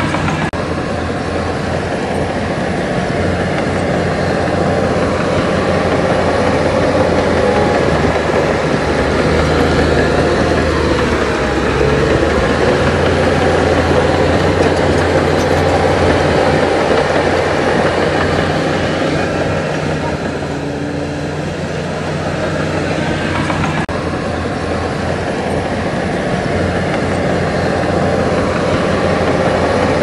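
Heavy diesel engine of earthmoving machinery running steadily.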